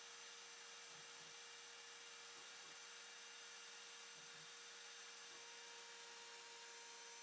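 Near silence: a faint steady hum over hiss, with two faint pairs of soft low blips, about a second in and about four seconds in.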